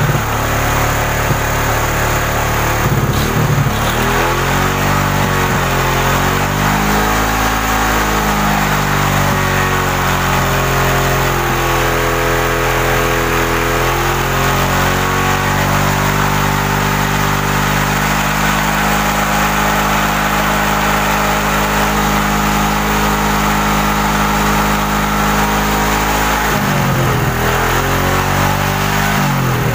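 Suzuki Shogun 125 single-cylinder four-stroke engine being revved to bring it up to temperature. The engine note rises and falls in several slow swells, then holds at a steady higher speed, and drops and picks up again near the end.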